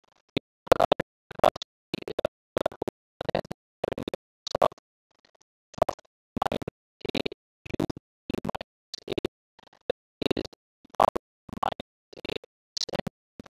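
Pen tip scratching across a tablet or screen in short strokes, about two a second with silence between them, as an equation is handwritten.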